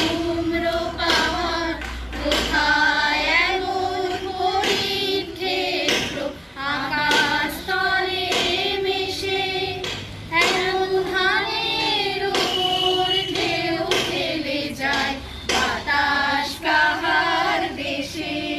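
A small group of adults singing a song together, the voices holding long, wavering notes.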